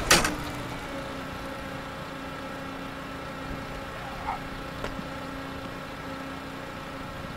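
A football passing machine launches a ball with a sharp thud right at the start, then its motor keeps up a steady hum.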